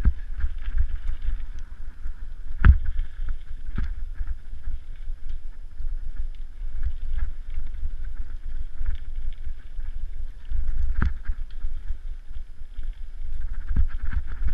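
Mountain bike ridden over rocky dirt singletrack, heard from a camera mounted on the bike: wind buffets the microphone and the tyres run on dirt, with sharp knocks and rattles as the bike hits rocks and roots, the loudest about three, four and eleven seconds in.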